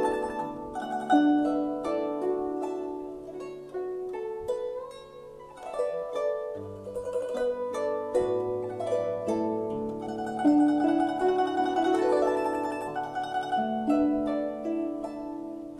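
Guzheng (Chinese zither) played solo: a slow plucked melody of ringing, decaying notes, with a couple of quick sweeping glissandi across the strings.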